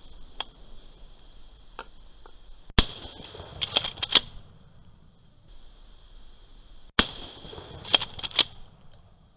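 Two shotgun shots about four seconds apart, each followed about a second later by a quick run of sharp cracks, over a steady high-pitched insect chorus.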